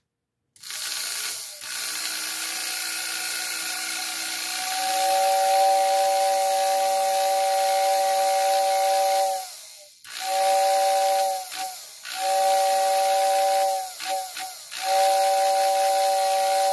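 Lionel 234W whistle tender's motor-driven whistle: the motor spins up with a rushing hiss, then the two-note whistle sounds steadily for about five seconds, followed by three shorter blasts with breaks between. The whistle is weaker than these can go, which the owner suspects comes from worn motor brushes.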